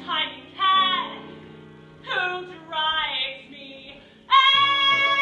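Show-tune music with singing: short sung phrases that slide down in pitch over held accompaniment chords, then a loud held note starting about four seconds in.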